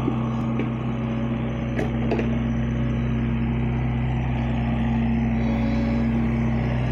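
Avant 640 compact loader's diesel engine running steadily under load as the machine carries a heavy log in its grapple.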